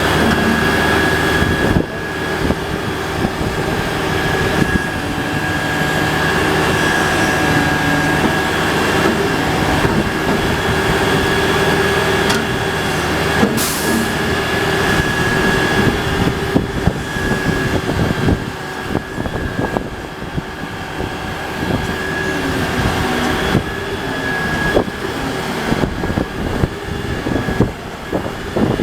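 Bradco backhoe running: a steady engine drone with a high whine over it, and scattered metallic knocks and clanks, one sharp click about halfway through.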